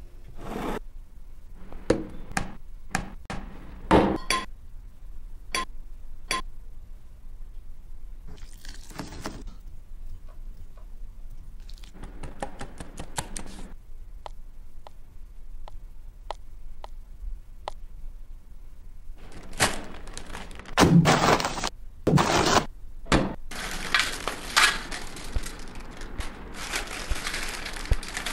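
A string of separate sharp knocks and clicks, then a quick run of light clicks as batter is stirred in a plastic bowl, and a few loud thunks. In the last few seconds comes a dense, loud crackling as Lay's potato chips are crushed by hand on a steel tray.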